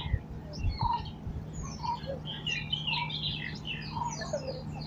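Several birds chirping and calling in trees, a busy scatter of short high chirps with a lower call note repeated about once a second. A faint steady low hum runs underneath.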